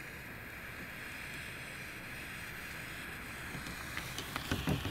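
Small handheld gas torch running with a steady hiss as it melts plastic welding rod into a split in a plastic kayak hull. A few faint clicks come near the end.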